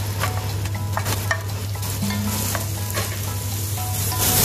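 Onions, garlic, ginger and sliced tomato sizzling in hot oil in a pot, stirred with a wooden spatula that scrapes and knocks against the pan.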